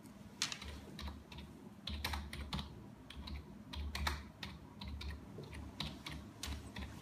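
Typing on a computer keyboard: a run of quick, uneven keystrokes, each a short click.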